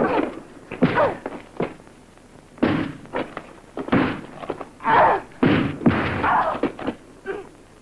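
Dubbed film-fight sound effects: a rapid, uneven series of punch and blow impacts, mixed with short grunts and cries from the women fighting.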